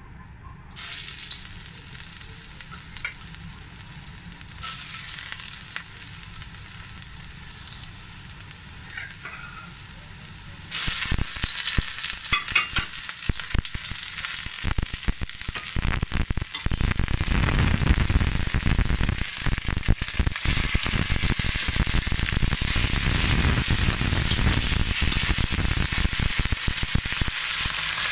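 Hot oil sizzling softly in a steel wok. About a third of the way in, a sudden much louder sizzle starts as sliced onion and garlic go into the oil. It grows fuller and louder a few seconds later as beef fries with them and is stirred with a spatula.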